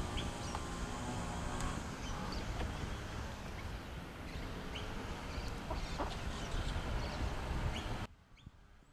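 Wind buffeting the microphone in uneven gusts, with scattered short bird calls over it. The sound cuts off abruptly about eight seconds in.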